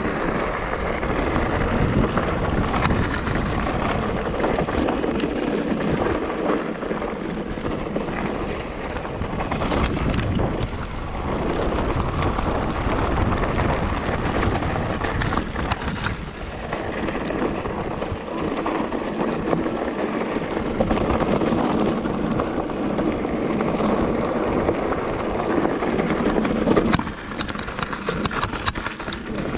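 Wind rushing over the camera microphone as an electric mountain bike is ridden, with the rumble of the tyres on the track and scattered clicks and rattles from the bike. The rush rises and falls in strength.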